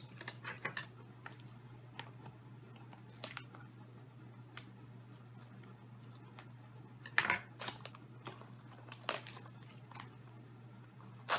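Scissors snipping and packaging crinkling as a small cardboard toy box is cut open and handled, a run of scattered short clicks and rustles; the sharpest come about seven seconds in and near the end.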